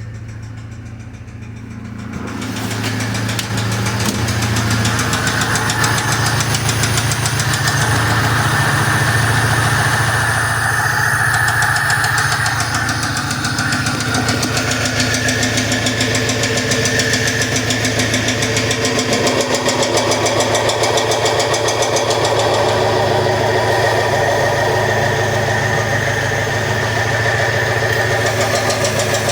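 VAZ 2101 (Lada) inline-four petrol engine running with a rapid, regular knock, which the owner traced to a piston pin. About two seconds in the engine gets louder, then runs steadily.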